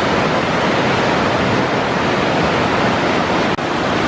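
Waterfall: a loud, steady rush of falling water, with a brief dip about three and a half seconds in.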